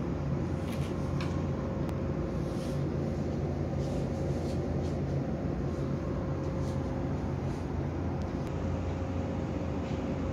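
A steady low mechanical hum, even throughout, with a few faint clicks over it.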